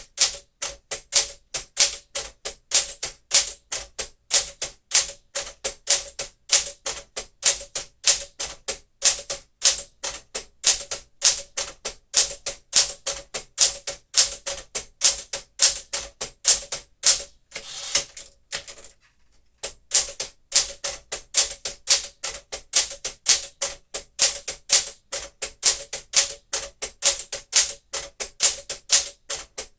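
1964 Smith-Corona Sterling manual typewriter typing a character test: sharp keystroke clacks at a steady pace of about four a second. A little past halfway, the typing breaks for a longer rasping sound and a short pause, then goes on at the same pace.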